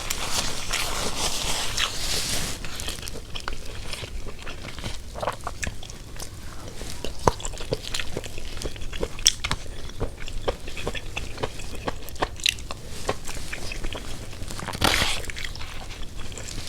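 A person eating close to the microphone: chewing and biting with many small wet clicks and crunches, and a louder noisy stretch about fifteen seconds in.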